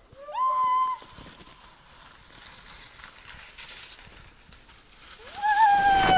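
Drawn-out cries at a steady pitch, a short one just after the start and a longer one near the end. Under them, a husky team and its sled come closer over the snow, their rushing and crunching growing loud as they pass at the end.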